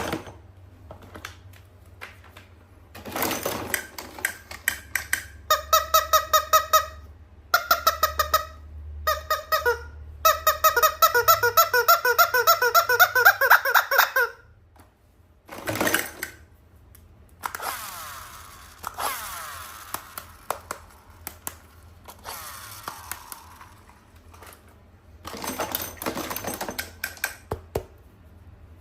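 A toy squeaking in rapid, even pulses for several seconds, amid clicks and rustling of handling.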